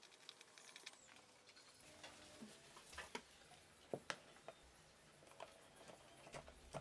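Near silence broken by scattered faint clicks and taps, the sharpest pair about four seconds in, from a jigsaw and a wooden board being handled and fastened.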